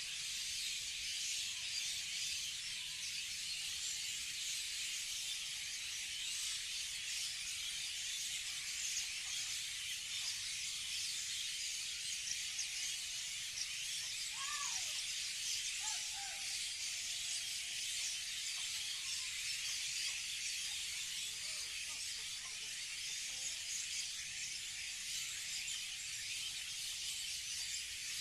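Morning chorus of many birds chirping densely together, with a few lower calls falling in pitch about halfway through.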